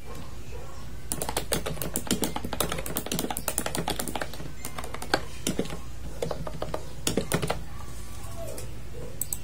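Typing on a computer keyboard: quick runs of keystroke clicks for several seconds, stopping about three quarters of the way through, then a few more clicks near the end.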